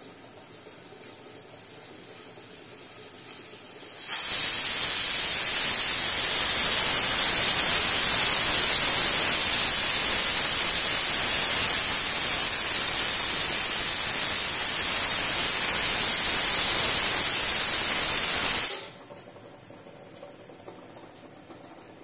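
Pressure cooker whistle blowing: the weighted valve on the lid lifts under built-up steam pressure and lets off a loud, steady hiss of steam for about fifteen seconds, starting a few seconds in and cutting off sharply, with a faint steam hiss before and after.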